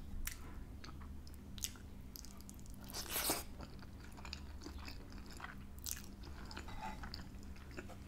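Close-up eating sounds: chewing soft chips in gravy and melted mozzarella, with wet mouth clicks and a louder slurp about three seconds in as a strand of food is sucked in.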